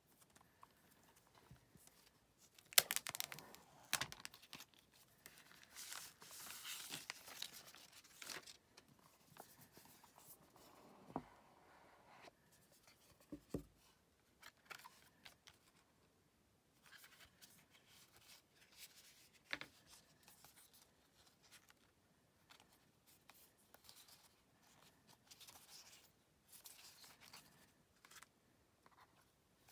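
Wrapping being torn and rustled on an iPhone Xs box, then the cardboard lid and inner packaging lifted off and set down on the table with scattered light knocks and short paper rustles.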